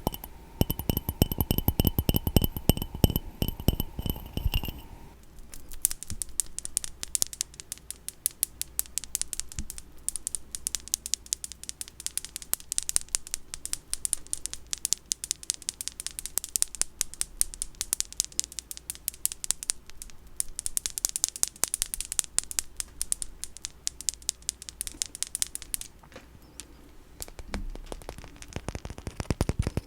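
Rapid ASMR tapping and scratching on small cat-themed goods. For the first five seconds the taps make an object ring with a clear chime, then they give way to dry, fast crackly tapping that thins out for a couple of seconds near the end before picking up again.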